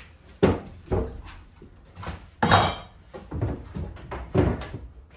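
Hard objects knocking and clattering: a string of sharp knocks, with a longer, louder rattle about two and a half seconds in.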